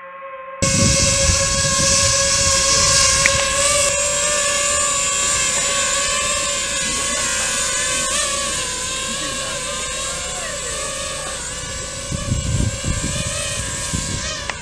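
Boat engine running steadily with a constant whine. About half a second in the sound jumps suddenly louder and fuller, and there are irregular low rumbles near the end.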